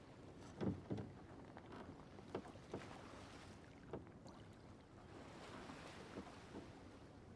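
Small wooden fishing boat on the water: scattered faint knocks of wood and gear, with a soft wash of water swelling twice.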